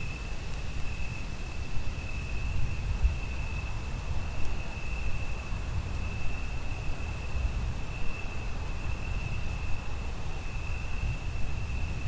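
Crickets singing a steady high-pitched trill over a low rumble of distant thunder, which swells near the end.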